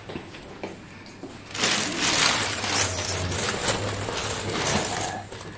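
A plastic takeaway bag rustling and crinkling, starting about a second and a half in and lasting about three and a half seconds.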